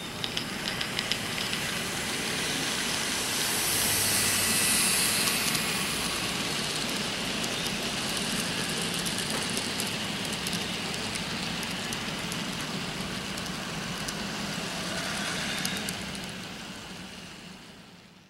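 N scale model freight train running along the layout's track: a steady running noise with a few clicks near the start. It swells a few seconds in and fades out near the end.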